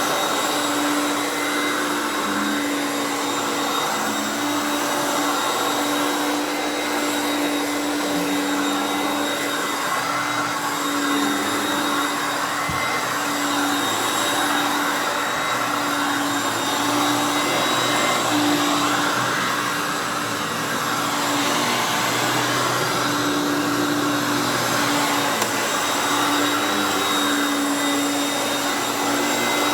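Vintage Hoover Concept One U3101 upright vacuum with a 5.6-amp direct-air motor, running steadily: a constant motor hum with a thin high whine over the rush of air.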